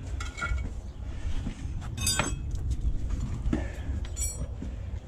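Bluestone flagstone and masonry tools being handled: scrapes, then two ringing clinks, about two seconds in and again about four seconds in, over a steady low rumble.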